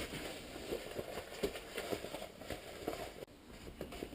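Faint rustling with scattered light taps and clicks: hands handling the drysuit and its replacement rubber feet.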